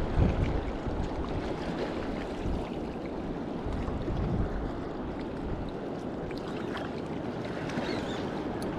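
Steady rush of river water along the bank, mixed with wind on the microphone.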